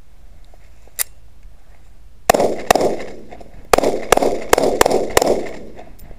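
Ruger SR40C compact .40-calibre pistol firing seven shots: two quick shots, a short pause, then a string of five, each shot echoing. A small click comes about a second in, before the first shot.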